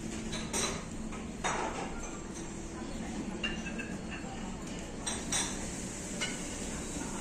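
Dining-room ambience at a buffet: scattered sharp clinks of dishes and cutlery over a steady background hum.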